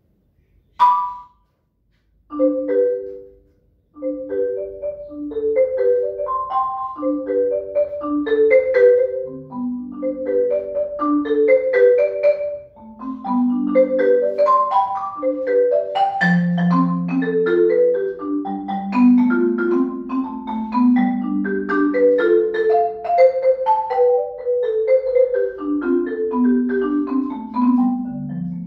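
Yamaha concert marimba played solo with mallets: a single high struck note, then a short chord, then an unbroken stream of ringing notes that moves down into the instrument's low register about halfway through.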